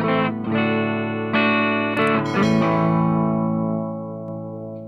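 Electric guitar played through a handmade distortion pedal, giving a thick, distorted tone. A few chords are struck in the first half, and the last one is left to ring and fade.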